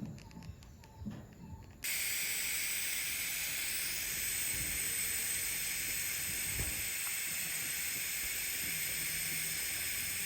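TIG (GTAW) welding arc on carbon steel pipe, running at 90 amps on the root pass: a steady hiss that starts abruptly about two seconds in and holds evenly, after a couple of seconds of faint handling knocks.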